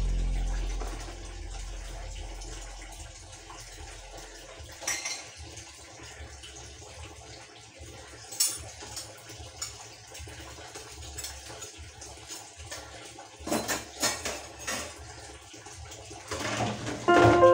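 Dishes being hand-washed at a kitchen sink: water and scrubbing, with sharp clinks of pots and utensils about five and eight seconds in and a cluster around fourteen seconds. Piano music comes in near the end, louder than the washing.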